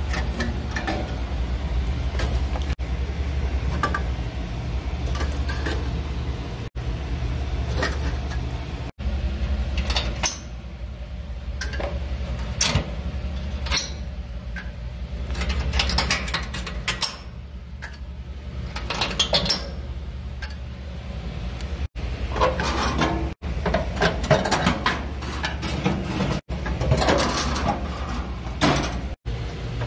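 Rusted steel burner tubes being worked off their brackets and lifted out of a gas grill: metal clanking, scraping and rattling in short irregular bursts, over a steady low rumble.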